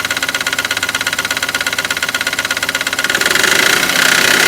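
Mahindra TUV300's three-cylinder diesel engine idling with a rapid, even knocking tick. About three seconds in it gets louder, with a stronger hiss, the 'soon' noise the mechanic suspects is a pressure leak on the inlet side or the EGR.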